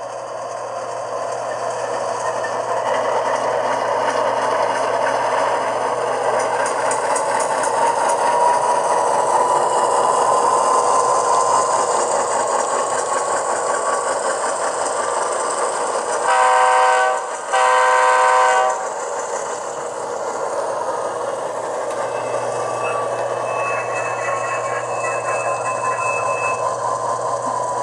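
Sound decoder of an HO scale Athearn Union Pacific Dash 9-44CW model locomotive playing its diesel engine sound as it runs by, the engine note rising in pitch as it throttles up. About two-thirds of the way in it sounds two horn blasts, the second one longer.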